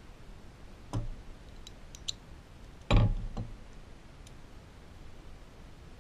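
Chrome ratchet, socket extension and socket clicking and knocking together as they are pulled apart. About three seconds in, a heavier metal clunk on the wooden bench is the loudest sound, followed by a couple of smaller knocks.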